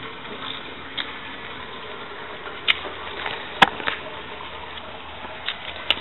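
A hand moving in shallow garden-pond water, with a few small sharp splashes and drips, the loudest about halfway through, over a steady background hiss.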